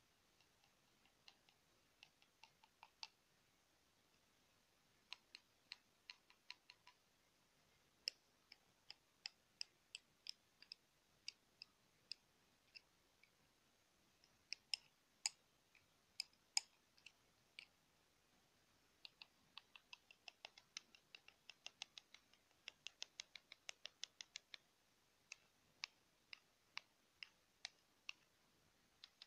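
Wooden pencils tapped and clicked against each other for ASMR: light, sharp clicks, irregular and sparse at first, then a quicker run of taps about two-thirds of the way through.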